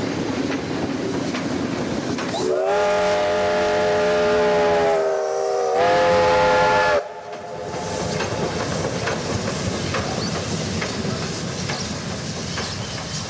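Victorian Railways K-class steam locomotive whistle sounding two blasts, several notes at once: a long blast of about two and a half seconds, then a shorter, slightly higher one that cuts off sharply. Under and after it, the steady rumble and clatter of the train's carriages running over a timber trestle bridge.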